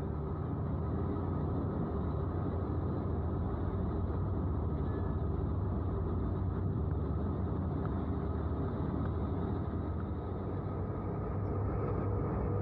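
Steady low rumble of a boat's engine running at an even pace, with a constant low hum and no changes.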